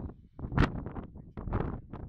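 Wind buffeting the microphone in irregular gusts, mostly low rumble, with a strong blast about half a second in.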